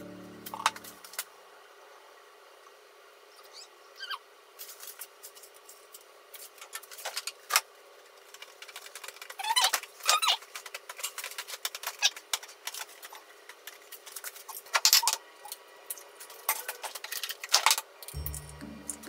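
Scattered light clicks and taps of kitchen handling, ending with eggs being cracked on the rim of a glass bowl and broken open into it. Background music fades out in the first second and starts again near the end.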